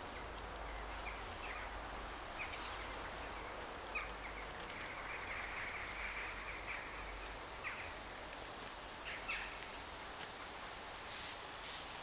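Garden bird-table ambience: scattered short bird chirps and small ticks over a steady outdoor hiss, as a female blackbird pecks seed off the wooden bird table, with a cluster of high calls near the end.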